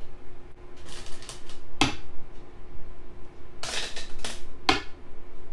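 Go stones being set down on a board with sharp, hard clicks: one about two seconds in, a quick run of clicks around four seconds, and one more shortly after.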